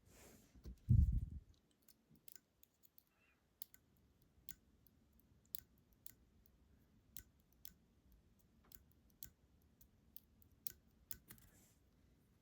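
Small, sharp metal clicks and taps at irregular intervals from the parts of a disassembled Yale 500 lock being handled, with one low thump about a second in.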